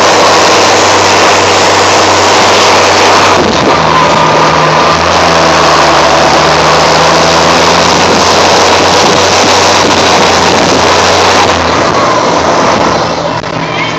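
John Deere 7810 AutoPowr tractor's turbocharged six-cylinder diesel running loud through an open exhaust pipe, with its turbo whistle. The sound is steady and gets somewhat quieter from about twelve seconds in.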